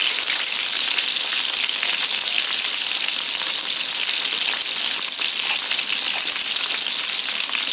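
Chicken wings frying in oil in a wok: a steady sizzling hiss full of fine crackles.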